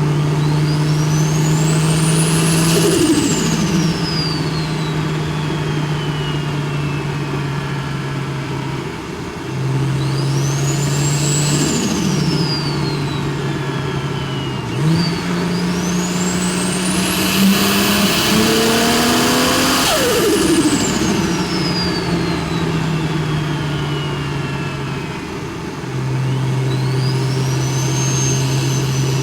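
BMW N54 inline-six converted to a big single turbo, pulling hard four times. With each pull the turbo's high whine climbs steeply and then falls away slowly after the throttle closes, over a steady low engine note. The third pull, about halfway through, runs longest and climbs highest.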